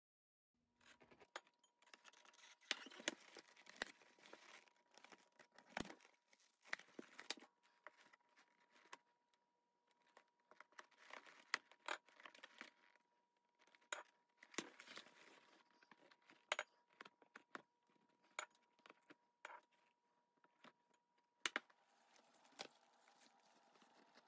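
Hands working an old walrus-leather doctor's bag and its metal frame: irregular sharp clicks and clinks of metal among rustling and crinkling of the old leather, with one loud click about 21 seconds in.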